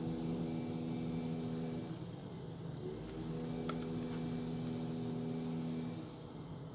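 A steady mechanical hum made of a few held tones, dipping briefly about two seconds in and fading near the end, with one sharp click in the middle.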